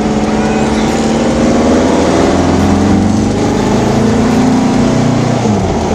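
Air-cooled 2332cc VW stroker flat-four in a Baja Bug running under light load. Its revs rise gently for a few seconds, then ease off just before the end, after a top-end repair that seems to have left it running okay.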